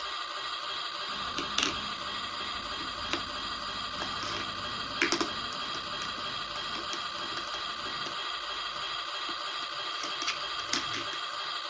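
Toy kitchen set's electronic sound effect: a steady hissing noise from its small speaker, with a few light plastic clicks and taps on top.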